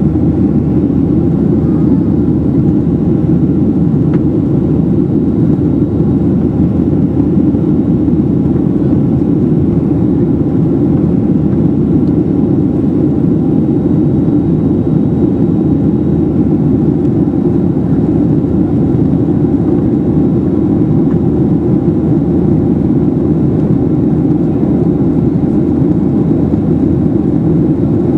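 Steady low drone inside the passenger cabin of a Boeing 737-700 in flight: the CFM56-7B turbofan engines and the rush of air over the fuselage, even and unchanging.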